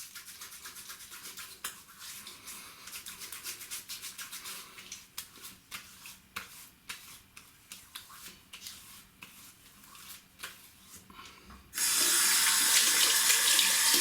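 Double-edge safety razor scraping through stubble in quick short strokes, each pass a small crisp rasp. Near the end a hot water tap is turned on and runs loudly, for rinsing the razor head.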